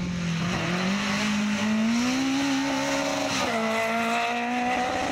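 Citroën Saxo rally car's engine under hard acceleration going past, rising in pitch for a few seconds. It drops sharply about three and a half seconds in, then pulls on.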